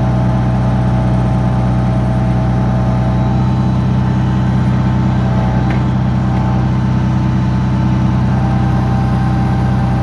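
Backhoe engine running steadily, heard from the operator's seat, with a faint whine whose pitch shifts a few seconds in.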